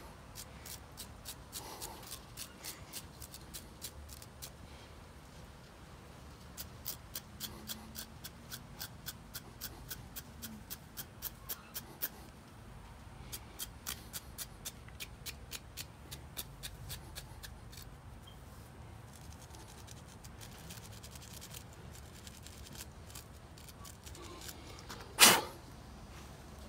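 A small stiff brush scrubbing a carburetor part clean, in quick scratchy strokes about two a second, then rubbing with a cloth. A single sharp knock near the end.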